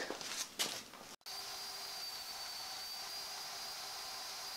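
Steel rings clink briefly as they are handled. Then a portable band saw runs steadily with a thin high whine, cutting a steel ring in half.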